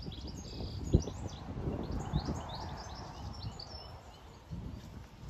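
Birds chirping and singing over a low rumble, with a sharp thump about a second in and a smaller one a little after two seconds.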